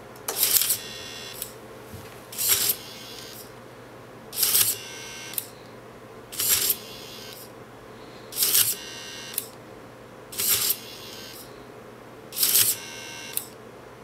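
Small electric motor of a robot connector mechanism running in short bursts about every two seconds, each a brief scrape followed by a high whine and a small click, over a faint steady hum.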